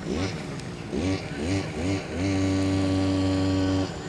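Lure coursing machine motor pulling the lure line. It spins up in several short rising spurts, then holds at a steady speed for about a second and a half before cutting off near the end.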